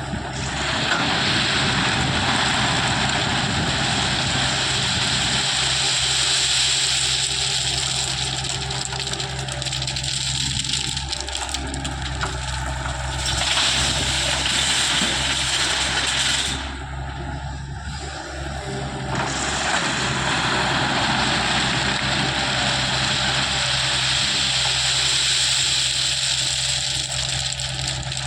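Heavy-equipment diesel engine running steadily under a loud rushing hiss. The hiss drops away briefly past the middle and then comes back.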